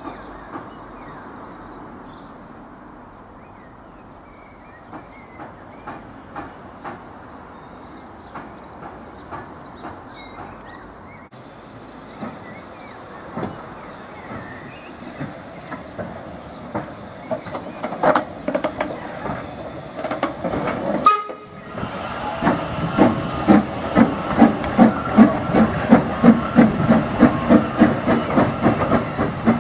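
0-6-0 saddle-tank steam locomotive moving off: steady hiss of steam with an even, quick beat of exhaust chuffs that grows loud over the last several seconds. Earlier, a quieter stretch with a diesel railcar approaching and birds chirping.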